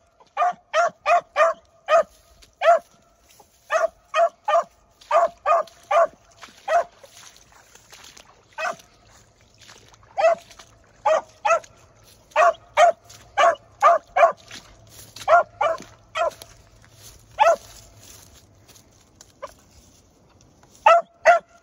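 Young beagle hound giving tongue while trailing a rabbit alone: short, sharp barks come in quick runs of several a second. The runs break off twice for a few seconds, and two more barks come near the end.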